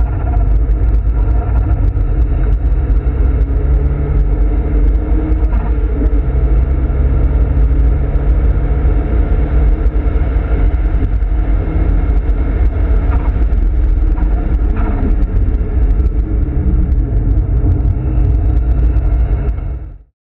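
Nissan Silvia S15 Spec R's turbocharged four-cylinder engine running hard at track speed, heard from inside the cabin as a loud, steady rumble mixed with road noise, its pitch shifting now and then. It cuts off suddenly near the end.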